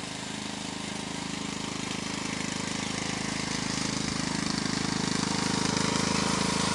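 Riding lawn mower's engine running steadily with a rapid, even pulse, growing louder as the mower comes closer.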